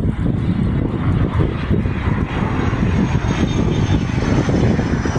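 Aircraft engine rumbling steadily, with a faint high whine that slowly falls in pitch from about halfway through.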